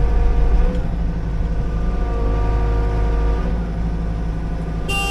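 Liugong 9051F mini excavator's diesel engine running steadily under load as the machine works, with a steady hydraulic whine over the drone. Near the end there is a short, shrill squeal.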